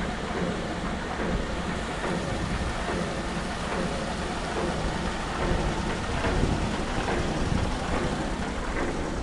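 Steady noisy roar of a tin-ore gravity-separation plant at work: running machinery with rushing water.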